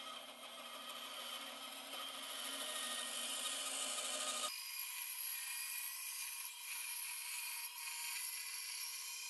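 Delta bandsaw resawing a thin veneer off the edge of a board, with a steady rasping hiss of the blade cutting through the wood. About halfway through, the lower part of the sound drops out abruptly, leaving a thinner hiss.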